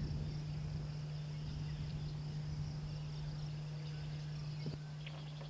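Outdoor ambience: insects chirring steadily, over a steady low hum.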